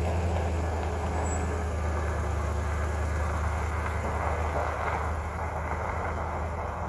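Truck being driven: a steady low engine drone with road noise.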